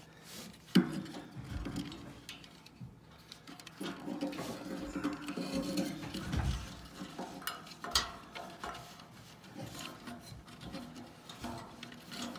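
Handling noise from wires and a plastic fan speed control being worked against a stove's sheet-metal control bracket: irregular rubbing and scraping with a few sharp clicks, the loudest just under a second in and another about eight seconds in.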